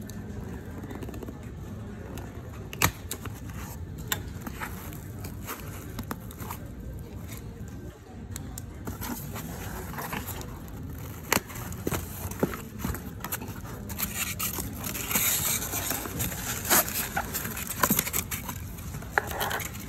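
Phone box and its packaging being handled and opened: scattered sharp clicks and taps, with rustling and scraping that grows busier about two-thirds of the way in.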